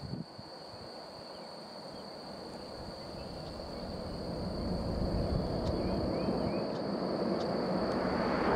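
Twin-engine jet airliner landing, its engine and airflow noise growing steadily louder as it comes in and flares over the runway.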